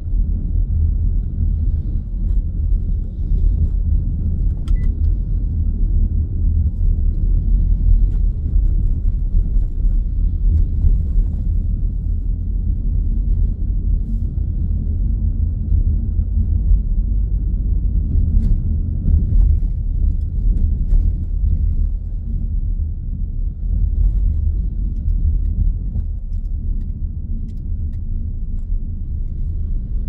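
Inside the cabin of a Mitsubishi Grandis GT minivan on the move: a steady low rumble of engine and road, with a few faint clicks scattered through it.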